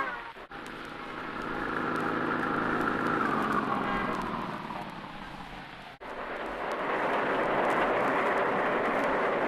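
Car sound effect on an old phonograph soundtrack: a car engine goes by, its pitch falling as it swells and fades. After a sharp break about six seconds in, a steady rushing engine noise builds up.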